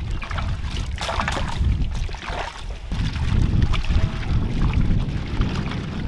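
Water sloshing and splashing as hands rub and stir vegetables in a large aluminium pot full of water, in short irregular splashes, over a steady low rumble of wind on the microphone.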